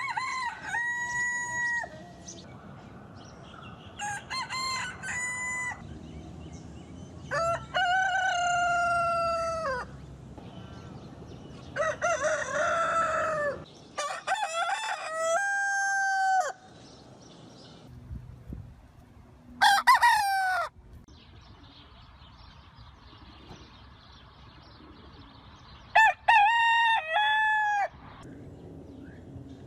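Roosters crowing, one crow after another from different birds: about seven separate cock-a-doodle-doo calls, each one to three seconds long, with pauses between them.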